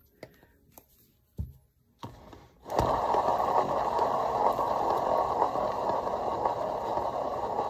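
A few light knocks from handling the painted board, then about three seconds in a paint-pouring spinner starts and runs with a steady rushing noise, spinning the excess white house paint off the board.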